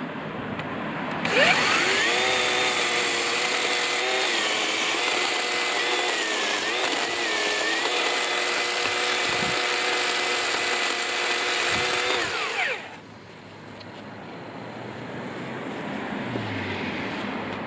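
Black & Decker 36-volt cordless chainsaw's electric motor and chain spin up about a second in and cut through a log for about eleven seconds with a steady whine that sags in pitch briefly a couple of times under load. Near the end of the cut the whine winds down and stops.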